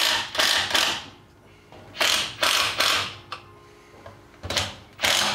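Cordless drill driving screws through pine end blocks into a firewood log, running in bursts of about a second with short pauses between, three or four times.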